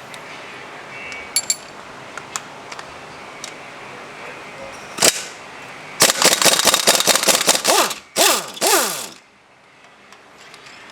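Hand ratchet wrench clicking: a single sharp click about five seconds in, then a quick run of ratchet clicks for about two seconds and two shorter runs just after.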